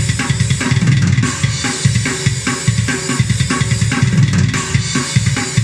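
Ugritone KVLT Drums II 'Vegan Tough Guy' sampled drum kit playing a fast metal groove at 145 BPM. It is a high-tuned kit: snappy snare and toms, a sharp kick, lots of treble overall.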